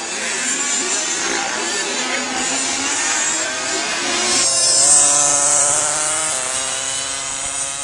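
Small engines of several remote-control racing motorcycles running around a track, overlapping engine notes that rise and fall in pitch as the bikes pass, with a sudden change in the mix about halfway through.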